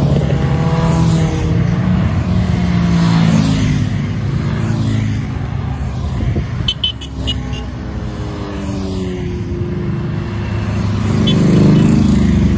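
Motorcycles riding past one after another, each engine's pitch dropping as it goes by, with the loudest pass near the end. A quick string of short, high beeps sounds around the middle.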